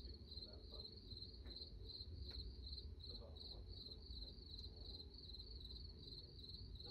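A cricket chirping faintly and steadily, about two chirps a second, over a low, even rumble.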